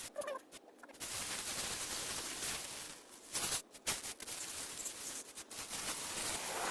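Wet cleaning of a typewriter's mechanism with a washing-soda and dish-soap solution: a steady, scratchy scrubbing noise that starts about a second in, with brief breaks about three and a half and four seconds in.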